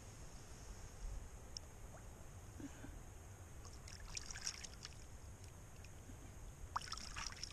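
Shallow water splashing at the bank as a fish is held in the water by hand and released, with two short bursts of splashing, one about four seconds in and another near the end, over a steady low rumble.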